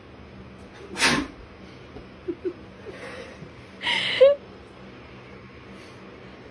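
Two sharp sneezes about three seconds apart, the second one the louder and ending in a short falling voiced sound, with a couple of brief quieter sounds between them: part of a fit of repeated sneezing.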